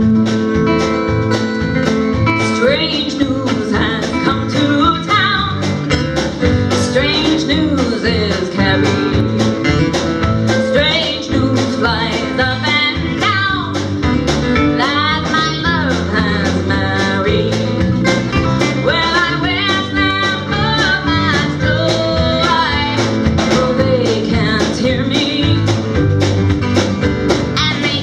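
A live band playing a country-blues song led by guitar, with a lead melody line that bends and slides in pitch over a steady rhythm.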